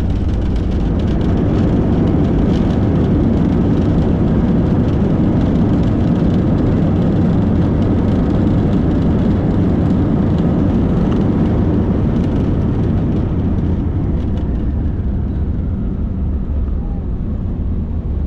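Cabin noise of an Airbus A320-family jet on its landing roll: a loud, steady rumble of engines and wheels on the runway that eases off in the last few seconds as the aircraft slows.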